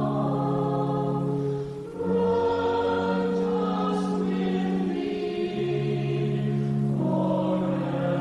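Church choir singing a slow piece in long held chords, changing chord twice, with a brief breath between phrases about two seconds in.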